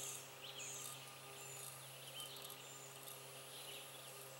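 Faint woodland ambience: small birds giving short, high chirps again and again, over a steady low hum.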